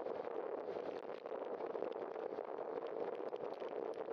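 Steady rushing noise of a bicycle rolling along a wet road: tyre hiss on the wet pavement and wind on the bike-mounted camera, with many small ticks and rattles mixed in.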